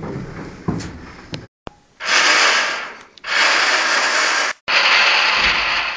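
Three loud bursts of breathy hissing, each over a second long, swelling and fading, with a sharp cut between the second and third.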